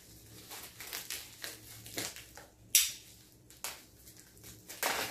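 Plastic bubble wrap crinkling and rustling as a knife works into stiff packing tape wrapped around it, with a few sharp snaps; the loudest is about three seconds in.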